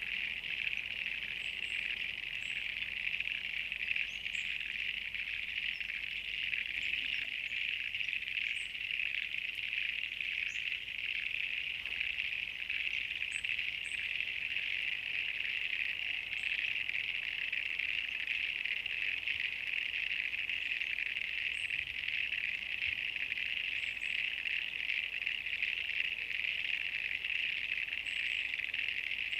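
A chorus of frogs calling together: a dense, steady trilling with faint short high chirps scattered through it.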